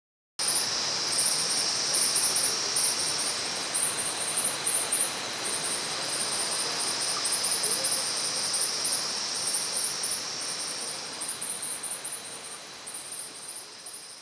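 Insects calling: a high, pulsing chirp in irregular clusters over a steady high buzz that swells and fades. It cuts in sharply about half a second in and fades toward the end.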